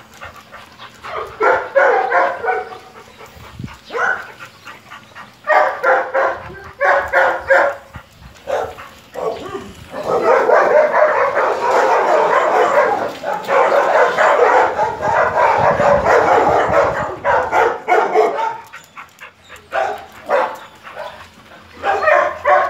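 Several dogs barking. Scattered barks at first, then a dense stretch of many dogs barking at once for about eight seconds midway, thinning back to scattered barks near the end.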